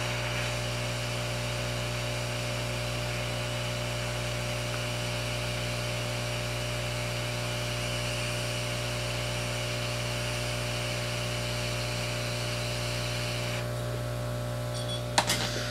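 Hot air rework station blowing steadily over the replacement Tristar (U2) chip on an iPhone 5c logic board to reflow it, over a constant low hum. The air cuts off about two seconds before the end, followed by a couple of light clicks.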